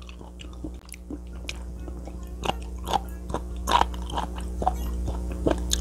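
Close-up mouth sounds of chewing raw sea cucumber: irregular crunchy bites and wet clicks several times a second, over a steady low hum.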